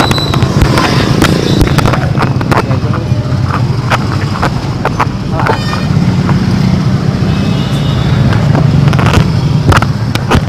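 Motor scooters and other traffic running at close range in slow, crowded street traffic, a steady engine hum with noise that sounds like wind on the microphone. Scattered sharp knocks run through it.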